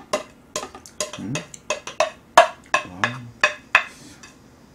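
Metal spoon tapping and scraping against plastic dishes: a quick, irregular run of sharp clicks.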